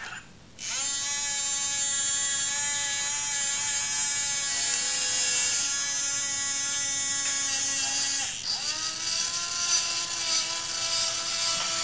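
Whine of the robot arm's small electric motors, starting about half a second in with a quick rise in pitch and holding steady. It drops out briefly around eight seconds, then spins up again.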